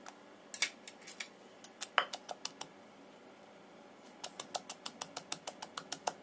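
Wooden pestle pounding shallots and garlic in a mortar: a few scattered knocks at first, then from about four seconds in a steady run of about five strikes a second.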